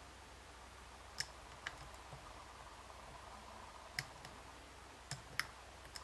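A dimple pick working the pins inside an Abus D10 dimple lock cylinder under tension, giving about six small, sharp clicks at uneven intervals.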